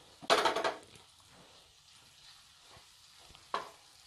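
Flat metal spatula scraping and knocking against a nonstick frying pan as grated paneer is stirred into the masala: one loud scrape about half a second in and a short knock near the end.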